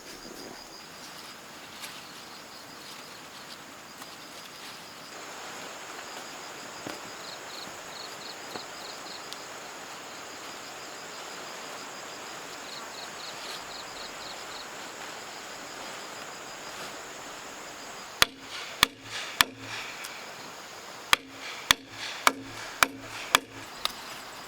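Sharp chopping or striking blows on wood: three strokes, then a short pause, then a run of six more at about two a second, each with a brief woody ring. They come over a faint rural background with high insect chirps.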